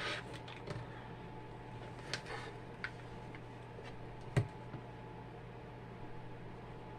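Quiet handling sounds as fabric pieces and sewing tools are lined up on a work surface: a few light clicks and taps with brief rustles, the sharpest tap about four and a half seconds in, over a steady low hum.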